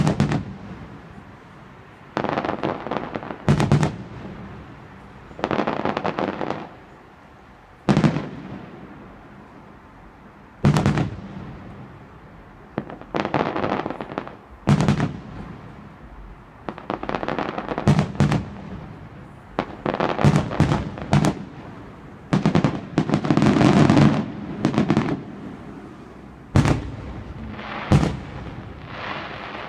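Aerial firework shells bursting in an irregular string of sharp bangs, each trailing off in a rumble. The bangs come in quick succession in a busy cluster a little past the middle.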